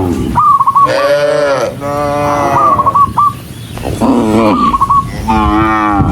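Cattle mooing repeatedly, one drawn-out call after another, each lasting about half a second to a second. A short high-pitched call repeats about every two seconds between the moos.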